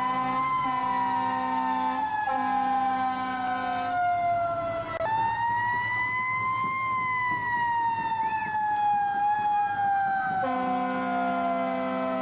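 Emergency vehicle siren wailing: the pitch rises, then slowly falls, jumps back up about five seconds in and falls again. A lower steady tone sounds alongside it for the first few seconds and again near the end.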